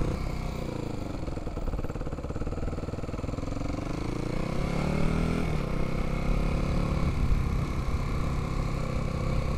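Dirt bike engine heard from the rider's helmet: its pitch falls as the bike slows, climbs again around the middle as it picks up speed, then holds steady at a cruise.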